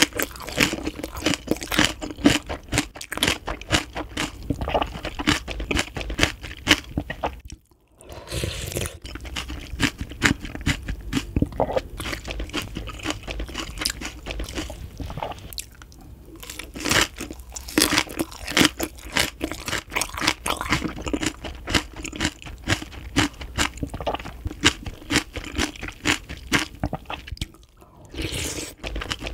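Close-up crunching and chewing of freshly made green onion kimchi, with many irregular crisp bites and a few brief pauses.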